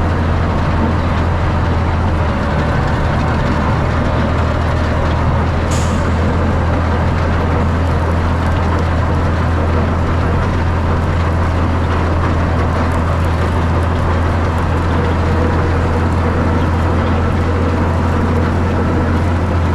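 Tractor engine running steadily under load while a vertical beater manure spreader works behind it, with a brief sharp tick about six seconds in.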